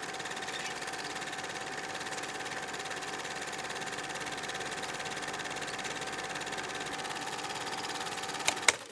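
A steady, fast-pulsing machine-like buzz with a held tone, ending in two sharp clicks just before it cuts off.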